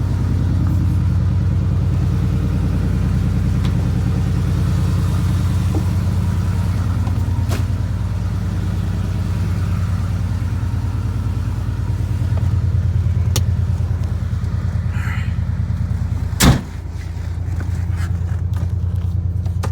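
Ford 4.0 V6 idling unevenly through glass-pack exhaust, with a misfire that the owner puts down to a cracked ignition coil. A single loud knock comes late on.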